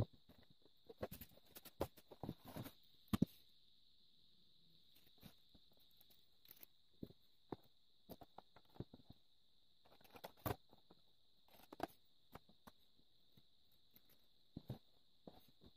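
Faint, scattered clicks and knocks, with the loudest a little after the start and again about ten seconds in, over a faint steady high-pitched whine.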